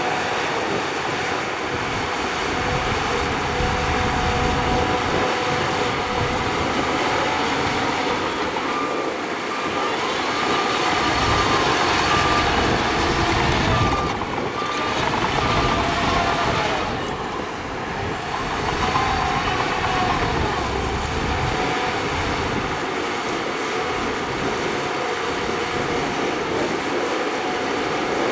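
Heavy diesel earthmoving machinery, a crawler bulldozer pushing dirt, running steadily under load. A run of short, evenly spaced beeps sounds about a third of the way in.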